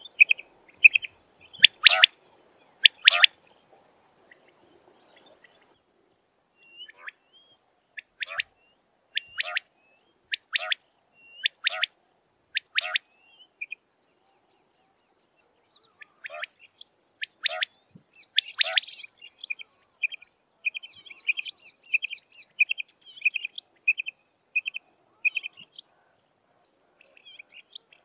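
Common quail calling: short sharp high notes, some in quick runs of several notes and some single and spaced about a second apart, with brief pauses between the bouts.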